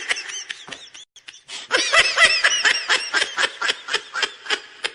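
High-pitched laughter: a quick string of short, repeated laughs, softer at first with a short break just over a second in, then a louder run.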